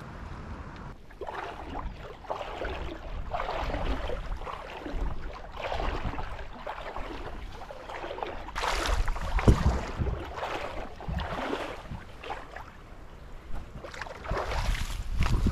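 Footsteps swishing through tall, wet marsh grass at a walking pace, about one a second, over a low wind rumble on the microphone.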